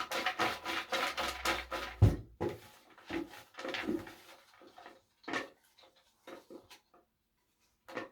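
Raffle ticket drum being turned, a regular clatter of about five strokes a second that stops with a thump about two seconds in. Scattered rustling and clicks follow and grow fainter as a ticket is drawn out by hand.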